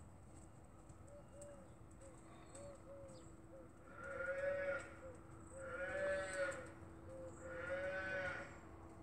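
A farm animal calling three times in the second half, about two seconds apart, each call about a second long and rising then falling in pitch. Fainter, shorter calls at a similar pitch come before them.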